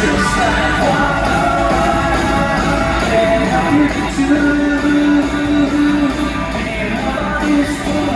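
Live pop band with guitar and drums playing in a large hall, recorded from the audience, with a sustained held note partway through and singing at times.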